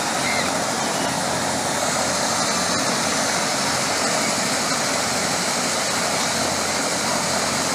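Helicopter running on the ground with its rotors spinning: a steady, loud rush of engine and rotor noise that does not change.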